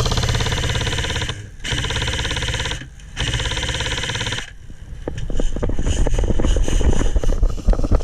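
Krytac LMG airsoft electric gun firing full-auto in three long bursts of a second to a second and a half each, a buzzing rattle as it lays down suppressing fire. After about four and a half seconds the firing stops, and scattered irregular clicks and crunches follow.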